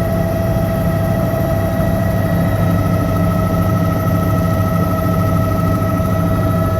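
Helicopter in flight: a loud, steady engine and rotor drone with a constant high whine over it.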